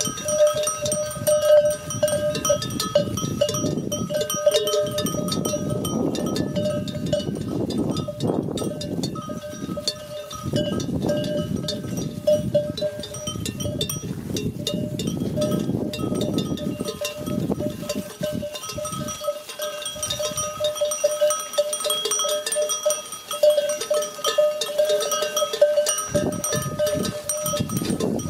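Bells on a flock of sheep clanking irregularly as the animals walk and graze, the same few ringing pitches struck again and again, over a low rustling noise that swells and fades.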